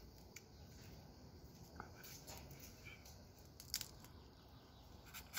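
Faint cracks and clicks of a cooked crab's shell being broken and picked apart by hand, against near quiet; the sharpest click comes a little before four seconds in.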